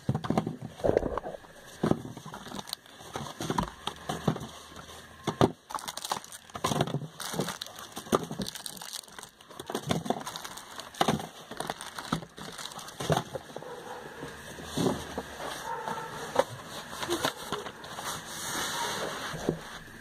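Cosmetics boxes, packets and catalogues being handled: irregular rustling of packaging with scattered taps and clicks.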